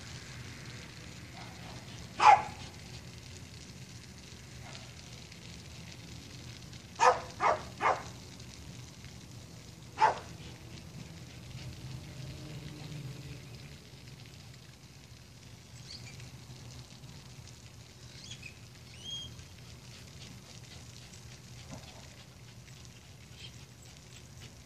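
A dog barking in short, sharp barks: a single loud bark about two seconds in, then three quick barks around seven seconds and one more about ten seconds in, over a steady low hum.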